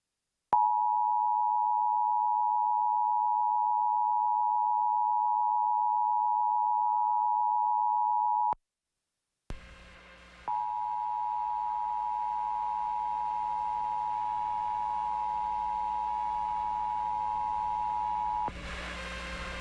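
Emergency Alert System attention signal: the steady two-tone chord of about 853 and 960 Hz sounds for about eight seconds, breaks off for about a second, then sounds again for about eight seconds. The second time it comes over a steady hiss and hum that carries on after the tone stops.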